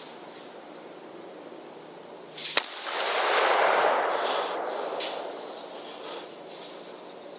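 A single rifle shot about two and a half seconds in, sharp and loud, fired at feral hogs in a corral trap. It is followed by a few seconds of noise that swells and fades away.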